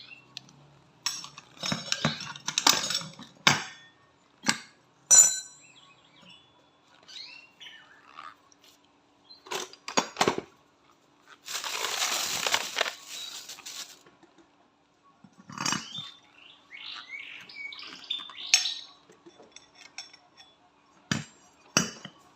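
Metal hand tools and steel parts clinking and knocking as a Honda ADV 160 scooter's CVT is taken apart to get at a worn needle roller bearing, with a hiss-like burst of about a second and a half near the middle.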